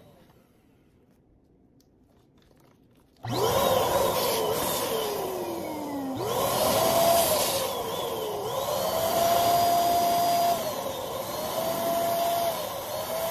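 Electric balloon pump switching on about three seconds in and running loudly as it inflates a clear bubble balloon, its motor whine falling and rising in pitch several times.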